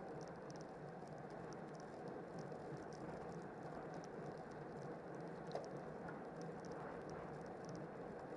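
Road bike riding in a racing pack, heard through a handlebar-mounted camera: a steady rush of wind and tyres on asphalt, with a light ticking about three times a second and one sharper click about halfway through.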